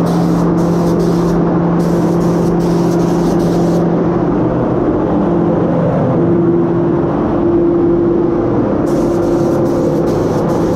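Gravity-feed automotive paint spray gun spraying in passes. Its air hiss starts and stops with each trigger pull: several spells in the first four seconds, a pause, then again from about two seconds before the end. Beneath it runs a steady hum.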